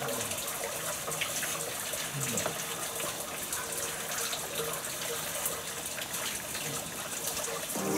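Forest stream running, a steady rush of water.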